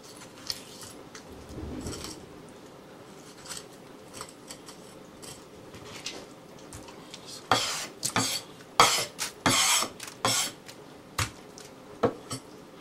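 Kitchen knife cutting and scraping through a sea bream on a wooden cutting board: faint slicing at first, then a run of loud scraping strokes about halfway through, and a few sharp knocks of the blade near the end.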